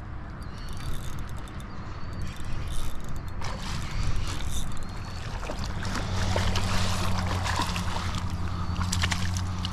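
A hooked striped bass thrashing and splashing at the water's surface as it is reeled in to the shore. The splashing picks up about halfway through, and a steady low hum comes in under it.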